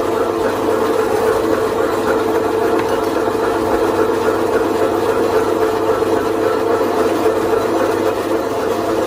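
Electric meat-slicing machines running with a steady motor whir while meat, including skin-on pork belly, is fed through their cutters.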